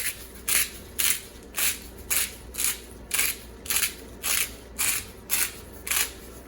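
Salt grinder being twisted over the pot: short gritty grinding strokes, about two a second, a dozen in all.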